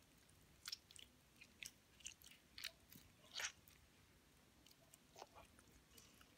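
Faint, irregular sticky clicks and squelches of a warm, water-softened lump of pink bubble gum being kneaded in wet hands.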